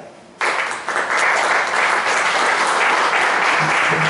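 Audience applauding: many hands clapping together, starting about half a second in and holding steady.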